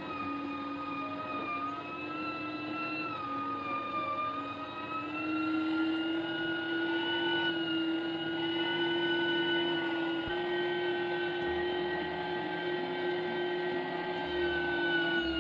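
Electric meat grinder running, its motor giving a steady whining hum as garlic is fed through; the pitch sags slightly and recovers under the changing load, with a small jump about ten seconds in.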